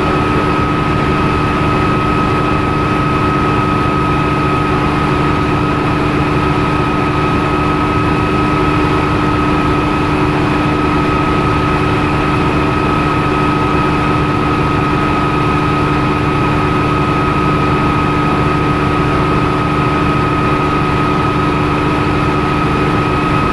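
Bell OH-13 Sioux helicopter's piston engine and main rotor running steadily in flight, heard from inside the cockpit. The noise is constant throughout, with a steady high whine over it.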